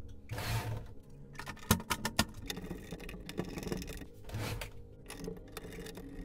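Screwdriver at work on the cabinet screws of a Sony MHC-RG333 mini hi-fi. Two short scraping rustles of hand and tool against the casing come about half a second in and again near four and a half seconds, with two sharp clicks about two seconds in.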